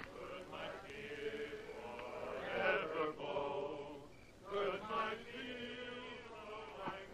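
A group of men chanting in unison, holding long sung notes that shift in pitch.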